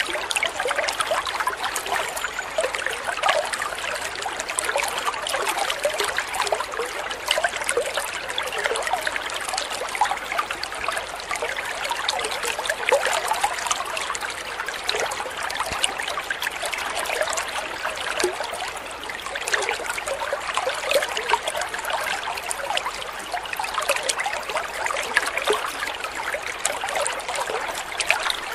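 Small waterfall spilling from a spout into a koi pond: a steady trickle and splash of falling water.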